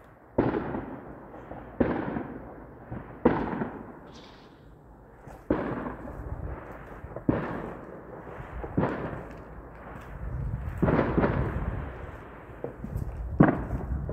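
Explosive bangs ringing out across the city, about eight of them at irregular intervals of a second and a half to two seconds. Each is sharp at the start and trails off in a long echoing rumble. A denser run of bangs comes a little past the middle.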